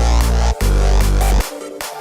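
Electronic dubstep-style music with heavy sustained bass notes, cut by short gaps, and sharp drum hits.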